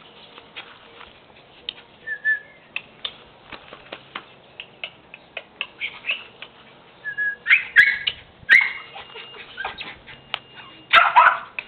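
Small puppy whimpering and yipping in short high cries, loudest in a cluster in the second half and one more near the end, among scattered light clicks.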